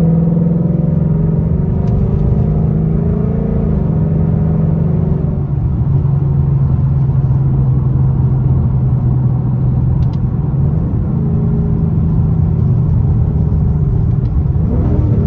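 Ford Mustang GT's 5.0-litre V8 with a loud exhaust, heard from inside the cabin while cruising: a steady rumble. Its pitch settles a little lower about five seconds in, then rises as the engine pulls harder near the end.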